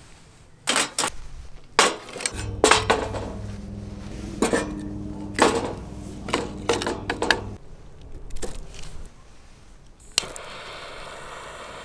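Camp dishes, pots and cutlery being handled: a run of sharp clinks and knocks, some ringing briefly. About ten seconds in, a steady hiss starts suddenly.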